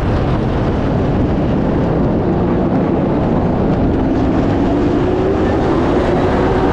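Pro late model race car's engine running steadily, recorded through a camera mounted on the car; its pitch rises slightly in the second half.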